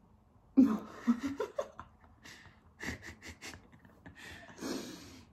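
A young woman laughing in short breathy bursts, starting about half a second in, with a long breath out near the end.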